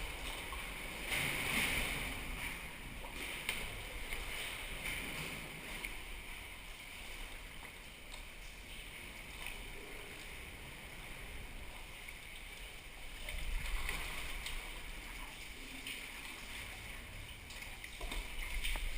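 Water splashing and lapping around a sea kayak, swelling louder a few times, over a low rumble.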